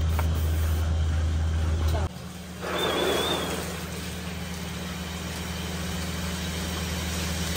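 Milking parlour machinery running with a steady low drone that cuts off abruptly about two seconds in. Then a short hissing rush of about a second and steady watery noise with a fainter hum, as the milking clusters are flushed with water.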